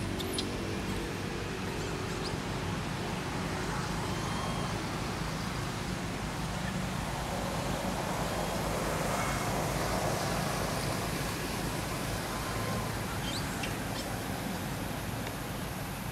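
Steady outdoor background rumble of distant road traffic, swelling for a few seconds about halfway through as a vehicle passes. A few brief high chirps sound near the start and again about thirteen seconds in.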